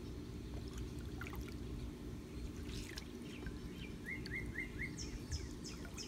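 Steady low hum of a pool pump with water trickling and splashing from the hose circulation driving an Intex automatic pool cleaner. A bird chirps four quick times about four seconds in, then gives a run of higher chirps near the end.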